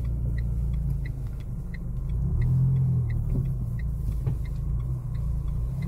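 Inside a moving car: a low, steady engine and road rumble, with a turn-signal indicator ticking evenly at about three ticks a second.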